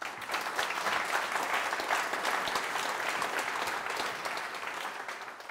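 Audience applauding: many hands clapping together, starting all at once and easing off slightly near the end.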